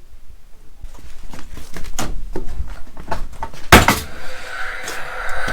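A run of sharp knocks and clunks from carpentry work, the loudest about three and a half seconds in, followed by a steady high-pitched hum with a hiss under it.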